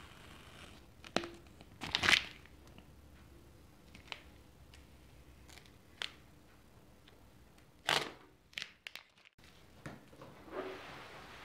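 Masking tape being pulled off the paintwork of a steel motorcycle fuel tank: a series of short tearing and crinkling sounds, the loudest about two seconds in and another cluster about eight seconds in.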